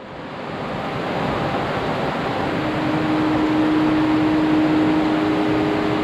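Steady rushing of a mountain creek cascading over bare rock, fading in over the first second. A faint steady low tone comes in about halfway.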